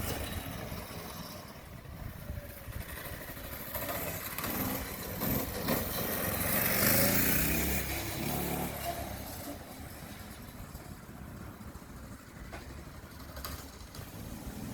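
A mini bike's small single-cylinder engine running as the bike rides by, growing louder to a peak about seven seconds in and then fading away.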